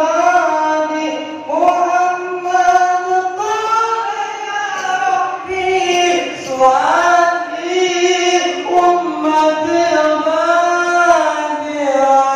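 Islamic devotional chanting by a single voice: a slow melody of long held notes that slide up and down between pitches, with few pauses.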